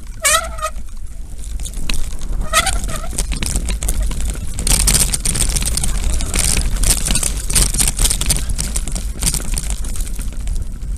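Footsteps crunching over loose stones and dry ground at a walking pace, with steady wind rumble on the microphone. Two short pitched calls sound near the start.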